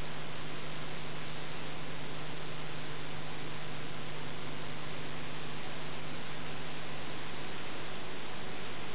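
Steady hiss with a low electrical hum and no other sound: the noise floor of a transferred Super 8 film's soundtrack.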